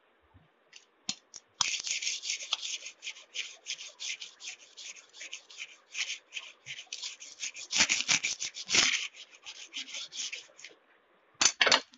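Sandpaper wrapped around a ruler rubbed quickly back and forth along a steel kitchen knife blade to sharpen it: a rapid scraping, several strokes a second. It starts about a second and a half in, stops shortly before the end, and comes back briefly for a few strokes.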